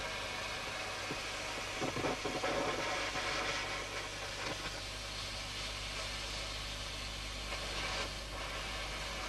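An engine running steadily, with some crackling about two seconds in.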